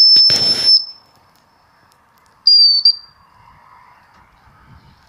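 Shepherd's whistle giving sheepdog commands: a long, steady, high-pitched note at the start, with a rush of noise under its second half, then a shorter note about two and a half seconds in that dips slightly in pitch.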